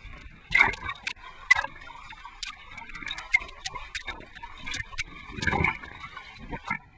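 Water sloshing and splashing against a waterproof action-camera housing at the sea surface: irregular sharp clicks and knocks, with a louder rush of water about five and a half seconds in.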